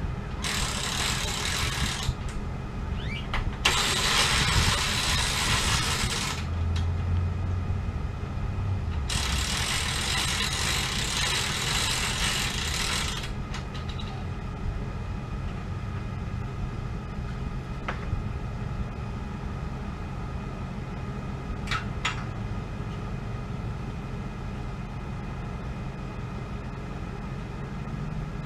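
Steady low engine rumble, with three long stretches of loud rushing noise in the first half and a low hum that steps down in pitch about seven seconds in.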